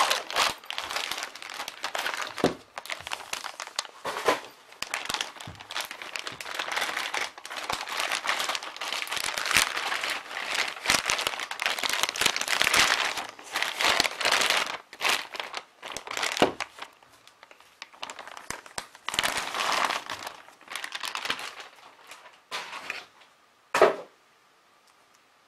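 Clear plastic wrapping around a tripod crinkling and rustling as it is handled and unwrapped, in irregular bursts of crackle. A single sharp knock comes near the end.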